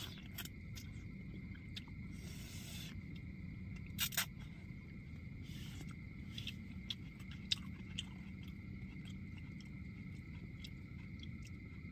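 Two people eating noodles with plastic spoons from paper plates: scattered small spoon clicks and scrapes with chewing. A pair of sharp clicks about four seconds in is the loudest sound.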